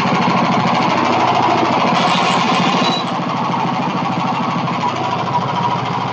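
Small gas engine of a Hudson Patriot bandsaw mill running steadily with a fast, even chugging, easing slightly about three seconds in.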